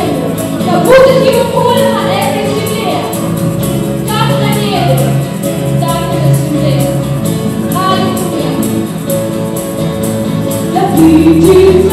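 Live worship song: a mixed group of voices singing together over keyboard, acoustic guitar and bass guitar.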